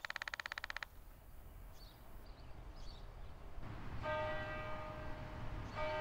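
A church bell striking, starting about three and a half seconds in, its ring held and sustained, marking the hour as six o'clock. It is preceded by a short, rapid rattle of about twenty pulses a second lasting under a second at the start, and faint high chirps in between.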